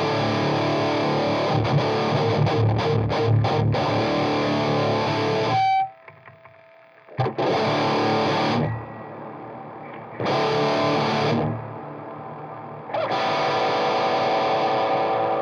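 Electric guitar played through a Keeley D&M Drive overdrive pedal at a high-gain setting. A fast, stop-start distorted riff cuts off suddenly about six seconds in, followed by three held chords, each left to ring.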